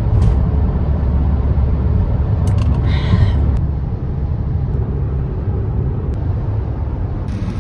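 Steady low road and engine rumble heard inside a moving car's cabin at highway speed, with a brief hiss about three seconds in.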